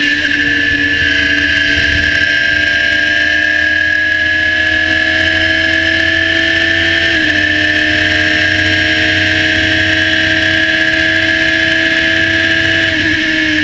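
Radical SR3 1500's four-cylinder engine running flat out near 9,500 rpm, heard from the cockpit. About seven seconds in the pitch dips briefly with an upshift and then climbs again, and near the end the pitch starts to fall.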